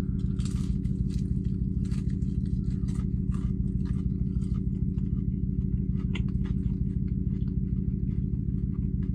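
Chewing a bite of breaded fried chicken tender, with scattered small crunches and mouth clicks, over the steady low hum of the parked car's idling engine.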